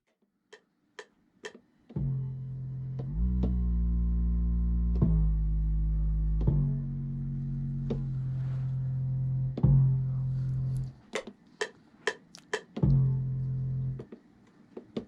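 Low, sustained bass notes played from a Maschine Mk3, changing pitch every second or two and stopping about eleven seconds in, with one more held note near the end. Sharp clicks of the controller's pads and buttons are heard between the notes.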